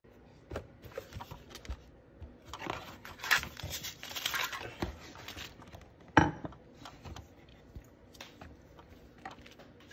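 Cardboard dessert box being opened and foil sugar sachets crinkling as they are handled, with scattered small clicks and one sharp knock about six seconds in.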